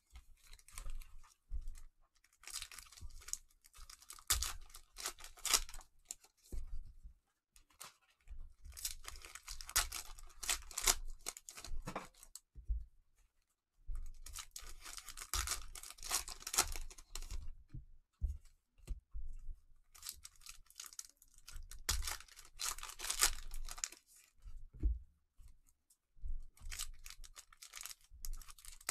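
Trading-card pack wrappers being torn open and crinkled by hand, in about six bursts of rustling and tearing, each a few seconds long, with short pauses between.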